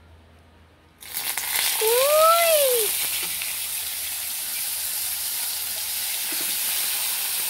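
Tilapia fillets laid into hot oil in a frying pan, sizzling. The sizzle starts suddenly about a second in, is loudest at first, then settles into a steady frying hiss.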